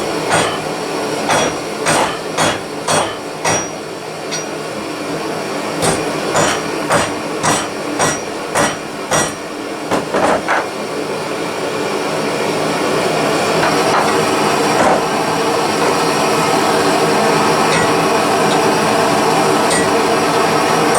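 Ball pein hammer striking hot rebar, about two blows a second in two runs with a short pause between. Then the hammering stops and a steady roar, from the blow lamp heating the metal, grows louder.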